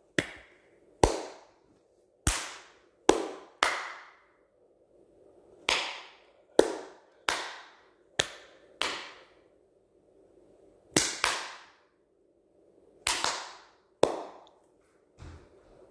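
Gunshot sound effects: a string of about fifteen single shots at irregular intervals, each a sharp crack that trails off quickly.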